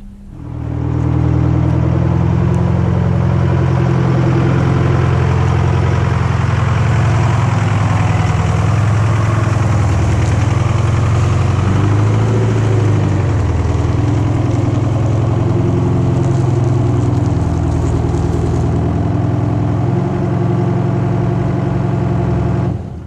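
A vehicle engine idling close by, steady with a slight wander in pitch. It comes up about half a second in and cuts off just before the end.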